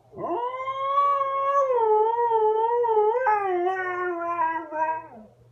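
Siberian husky howling: one long howl of about five seconds that swoops up at the start, wavers, and slowly falls in pitch. It has a brief break about three seconds in and drops away at the end.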